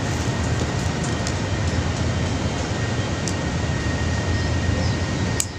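Steady low rumble of wind on the microphone, with a faint steady high whine and a few light clicks. It drops suddenly with a click near the end.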